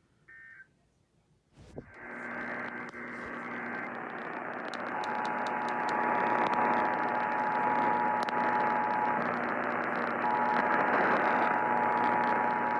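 Radio static: after a short beep and a click, a loud hiss comes up and swells. A steady tone runs faintly through it, dropping out for about a second partway through.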